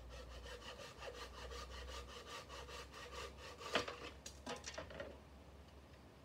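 Hand mitre saw cutting a thin stripwood trim strip, with quick back-and-forth strokes at about four a second. The sawing stops, followed by a sharp crack and a few light knocks.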